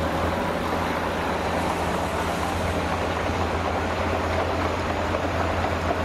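Tipper truck's diesel engine running steadily as its raised bed tips out a load of sand, a constant low hum under an even rushing noise.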